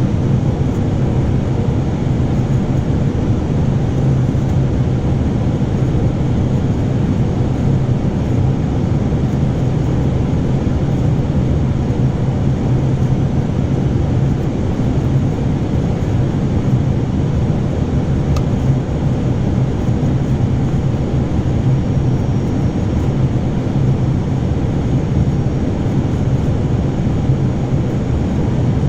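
Steady cockpit noise of an Airbus A320 on final approach: a continuous rush of airflow and engine sound, strongest at the low end, with one faint click about eighteen seconds in.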